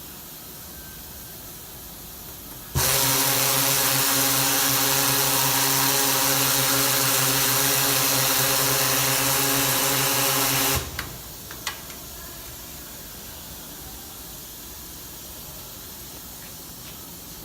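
Ball peen sanding machine running a cycle: a steady hum with a hiss starts suddenly about three seconds in, runs for about eight seconds and cuts off sharply, followed by a couple of clicks. It is a test pass with the needle tool set deeper.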